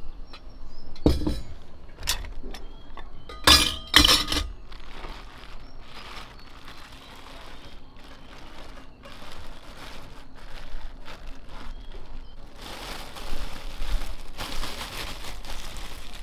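A tall metal canister clinking and knocking four times in the first few seconds as it is handled, then a plastic bag crinkling and rustling as frozen food is unwrapped, the rustle strongest near the end.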